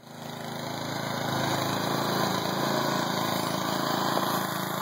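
Small single-cylinder engine of a motorized wheelbarrow (muck truck) running steadily as the machine is driven along.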